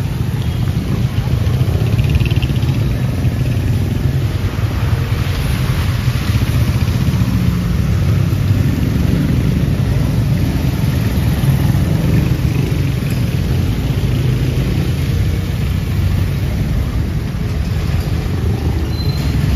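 Steady street traffic, with motor vehicle engines running close by in a constant low rumble.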